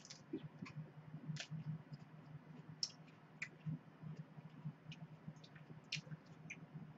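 Close-up chewing of raw leafy greens: irregular small crisp clicks and wet mouth sounds over a low steady hum.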